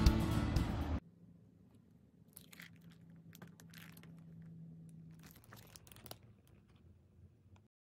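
Background music that cuts off suddenly about a second in, followed by faint rustling of a plastic package of self-laminating film sheets being handled, in a few short bursts.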